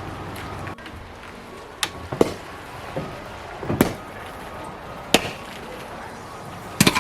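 Wood being chopped, about six sharp strikes at irregular intervals, the loudest a quick double strike near the end: kindling being split for a campfire.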